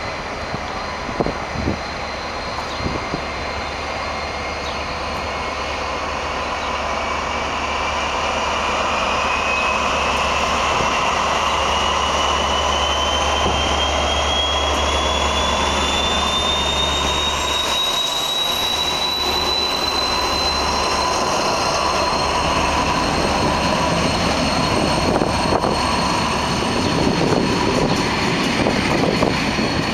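Two SNCF Class BB 67400 and BB 67300 diesel locomotives pulling away with a passenger train. A deep engine drone runs with a whine that rises steadily in pitch for about twenty seconds, then holds. The drone falls away after about eighteen seconds as the coaches roll past with clicking wheels.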